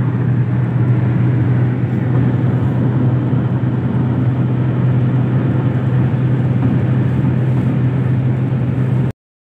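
Car driving along a highway, heard from inside the cabin: a steady road and engine drone with a strong low hum. It cuts off suddenly about nine seconds in.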